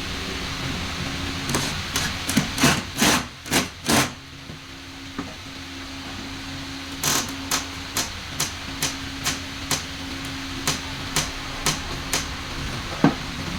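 Hammer blows on wood. A quick, uneven cluster of strikes comes first, then after a pause a steady run of about two blows a second, and one last sharp blow near the end.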